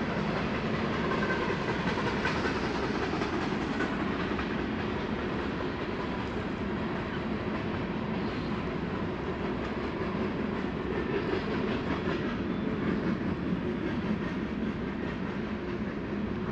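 Steady rushing of a river's current, an even noise with no breaks.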